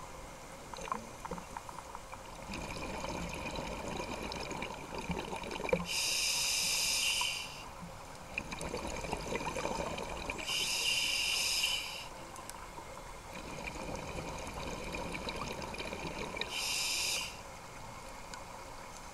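Scuba diver breathing through a regulator, heard underwater through a camera housing: three loud rushes of exhaled bubbles, each about a second and a half long and a few seconds apart. Between them come a quieter hiss of inhaling and scattered faint clicks.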